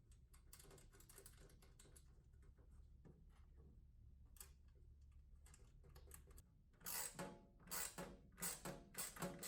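Faint, scattered light clicks, then background music of plucked notes comes in about seven seconds in.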